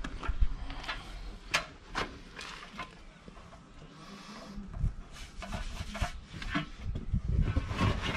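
Rubbing and scraping of rubber against a steel wheel rim, with a few sharp knocks, as hands work inside a partly unseated tractor tyre.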